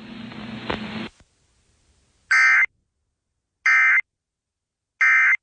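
Emergency Alert System end-of-message signal: three identical short digital data bursts, each under half a second and about 1.4 s apart. This is the SAME code that marks the end of the tornado warning broadcast.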